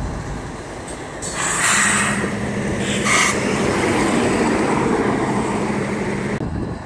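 Diesel semi truck driving past close by, its engine's steady drone and tyre noise swelling about a second in and dropping off sharply near the end. Two short hisses come about one and a half and three seconds in, over a diesel locomotive idling underneath.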